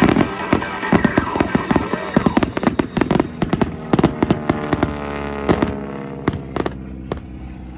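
Fireworks going off in a rapid run of sharp bangs and crackles, thinning out near the end.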